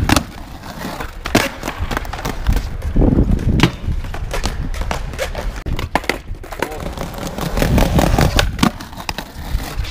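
Skateboard wheels rolling over paving with a steady rumble, broken by many sharp cracks of board pops, ledge hits and landings.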